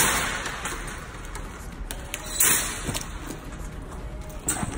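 Red plastic shopping cart with a wire child seat being pulled out of a row of nested carts and wheeled along, rattling and knocking. The loudest rattle comes at the start and another about two and a half seconds in, with a few sharp clicks near the end.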